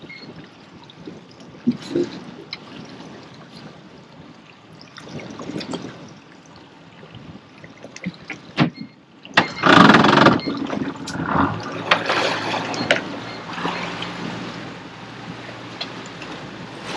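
Boat's outboard motor starting a little past halfway through and then running as the boat gets under way. Before it, water slops against the hull with a few knocks on the boat.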